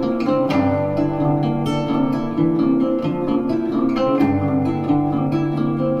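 Instrumental music led by plucked strings, played back through a pair of PMC Prodigy 1 bookshelf speakers and picked up by a microphone in the room.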